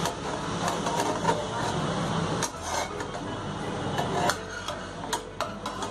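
Thin metal spatula scraping and clicking against a frying pan as it is worked under a cooked pizza base, several short sharp taps spread through, over a steady low hum.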